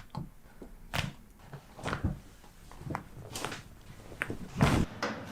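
Y-strap chiropractic adjustment: a scattered handful of short pops and knocks, about one a second, the loudest a thump near the end.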